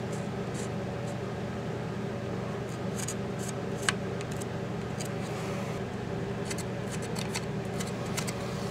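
Light clicks and taps from handling an aluminium soda can, a tape measure and a marker, scattered and irregular, the sharpest about four seconds in, over a steady low hum.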